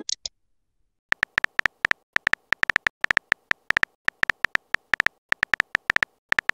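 Phone keyboard typing sound effect: a quick, uneven run of short clicks as a text message is typed, starting about a second in.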